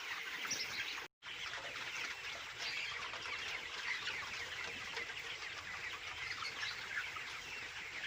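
A flock of broiler chickens in a farm shed clucking and peeping in a dense, continuous chatter, with a brief dropout about a second in.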